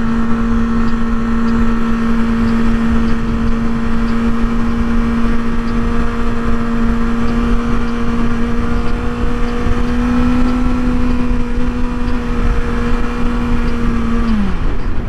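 2024 Kawasaki ZX-6R's inline-four engine running at steady high revs while riding, over a loud rush of wind noise. The engine note drops quickly near the end as the throttle is rolled off.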